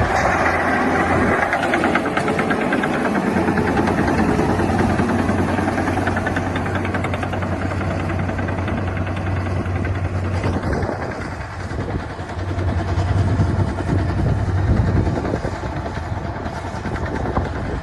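Komatsu D61EX bulldozer's six-cylinder diesel engine running with a steady low drone and fast firing rhythm. It eases off about eleven seconds in, then builds up again as the load changes.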